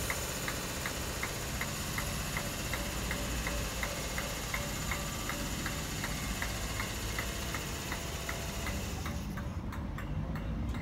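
ScotRail passenger train running past along the platform: a steady rumble with regular clicking, about two or three clicks a second, as the wheels pass over the rail joints. A high hiss fades out about nine seconds in.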